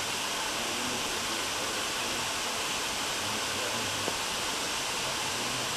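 Steady rushing of a waterfall, with faint indistinct voices under it.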